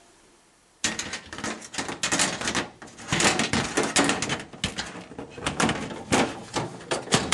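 Sheet-steel PC tower side panel being fitted back onto the case: a busy run of metallic knocks, clicks and scrapes, starting about a second in.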